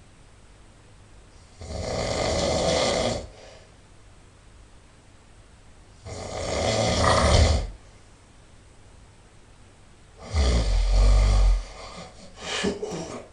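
A person snoring loudly: three long snores about four seconds apart, each lasting about a second and a half, the third the deepest, then a shorter, broken snore near the end.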